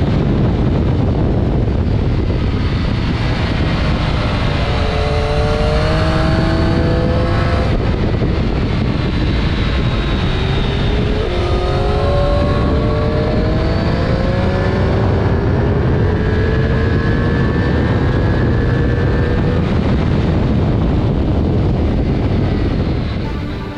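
Triumph Street Triple RS 765's inline three-cylinder engine heard from on the bike at track speed, under heavy wind rush. The engine note drops as the bike slows for a corner, then climbs again in several rising steps as it accelerates through the gears.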